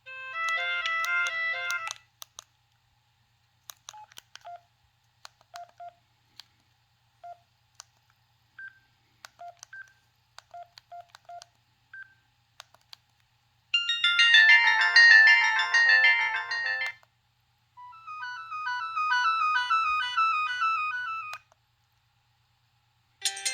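Preloaded ringtones of a Kyocera KX9B cell phone playing through its small speaker, one after another. A short tune of about two seconds comes first, then scattered clicks and short beeps, then two tunes of about three seconds each, and another begins right at the end.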